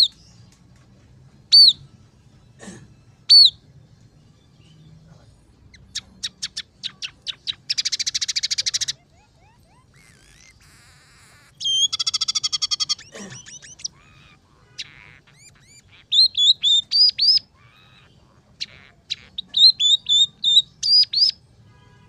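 Scaly-breasted munia singing: three sharp falling whistles, then a fast run of ticks that closes in a buzzy trill, buzzy notes, and two series of quick up-and-down notes near the end.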